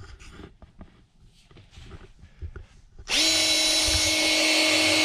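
Cordless drill switched on about three seconds in, spinning up and then running at a steady whine as it turns the priming rod that drives the oil pump of a 440 big-block Mopar V8, priming the oil system. Before it, a few light clicks of handling.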